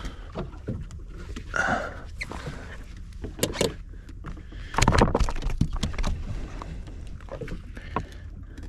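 A fish being handled on a measuring board in a small boat: scattered knocks, clicks and rattles, with a louder cluster of knocks and scraping about five seconds in.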